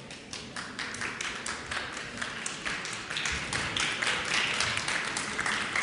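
Audience applauding, the clapping growing denser and louder over the first few seconds.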